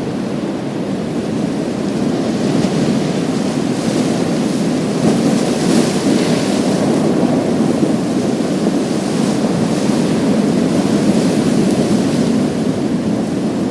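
Sea waves breaking on a pebble beach: a steady, deep wash of surf that swells louder about two seconds in, with a hissier surge around the middle.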